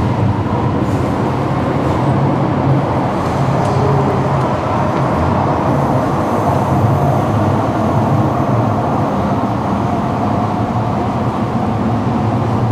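Steady low rumble of an MRT train moving out of an underground station behind the platform screen doors, mixed with the station's constant machinery hum.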